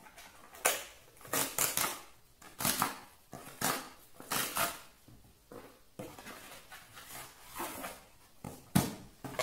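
Amazon cardboard mailer box being opened by hand: cardboard rustling and scraping in short repeated bursts as the flaps are worked open and the inner box is slid out, with a sharp knock near the end.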